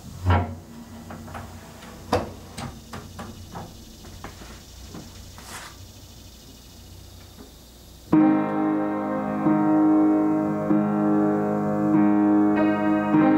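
Hands working the wooden fallboard of an upright piano: a thump and a few light knocks and clicks. About eight seconds in, piano chords start abruptly and ring on, much louder than the handling.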